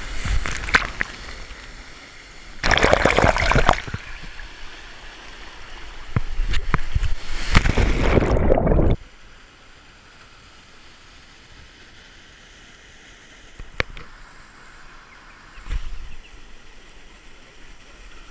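Rushing and splashing water at a waterfall, loud in stretches, then dropping suddenly about halfway through to a fainter, steady rush with a few short splashes.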